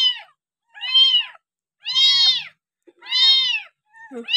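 Young kittens meowing over and over in high, thin cries, about one a second, each call rising and then falling in pitch. These are hungry kittens crying for milk at feeding time.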